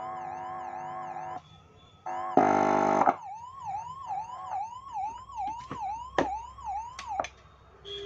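Electronic siren tone from an ambulance siren amplifier through its loudspeaker, a rapid up-and-down wail of about two and a half sweeps a second. It cuts out and back in with a harsh buzzing blast and sharp crackling clicks, then stops near the end: the sign of a loose connection the repairer calls faulty.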